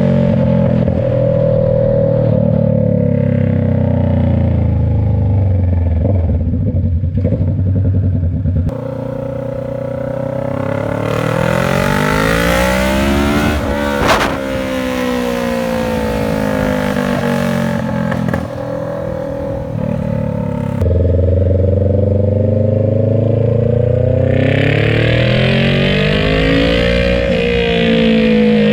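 Kawasaki Ninja 650 parallel-twin engine through a short straight-pipe exhaust with no muffler, its loud note rising and falling repeatedly as the bike accelerates and eases off. A brief sharp crack comes about halfway through, and the sound changes character abruptly twice.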